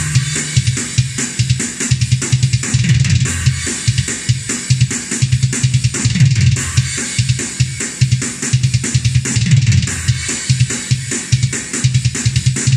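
Ugritone KVLT Drums II's 'Cardinal Kings' sampled metal drum kit playing a programmed pattern at 145 BPM: fast, steady kick drum strokes under a constant wash of cymbals. The cymbals ring out as the playback stops near the end.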